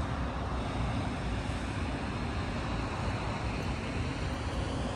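Wind buffeting a phone microphone outdoors: a steady, deep hiss with no distinct events.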